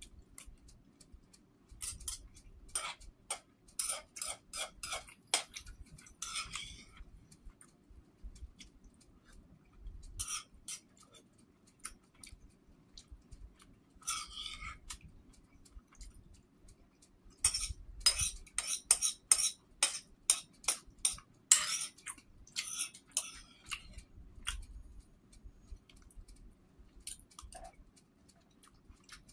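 Metal spoon clinking and scraping against the inside of a deep bowl, in several runs of quick taps as the last of the soup is scooped out.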